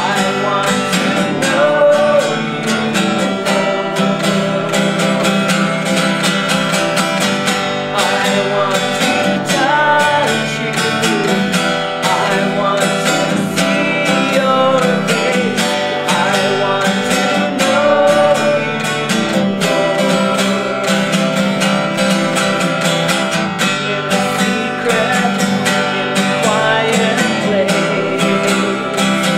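Acoustic guitar strummed in a steady rhythm, accompanying a woman singing a Christian worship song.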